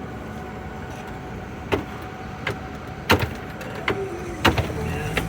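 Steady city street traffic hum, with about six sharp knocks and clicks from under two seconds in as the phone is handled and set down; the loudest comes just after three seconds.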